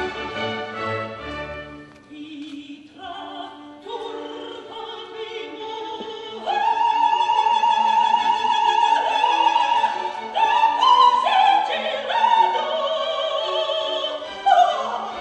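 Operatic soprano singing with a symphony orchestra. The orchestra plays alone at first, and the soprano comes in about six and a half seconds in with long, high notes sung with vibrato, ending on a quick falling run.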